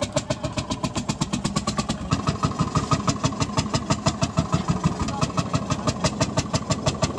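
Vintage tractor engine running after its first start in many years, firing in a fast, even beat of about seven exhaust pulses a second. The beat gets louder about two seconds in.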